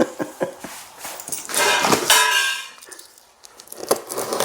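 A few light knocks, then a scrape of about a second with a slight ringing, as something is kicked across the floor, followed by a few more knocks.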